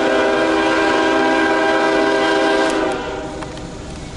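A CSX freight locomotive's air horn sounding a chord of several notes that cuts off about three seconds in, leaving the quieter noise of the approaching train.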